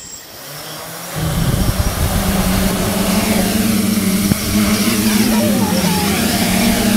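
Quadcopter's four Sunnysky X2212 980Kv brushless motors and propellers spinning up about a second in as it lifts off, then a steady loud propeller buzz whose pitch wavers as it hovers.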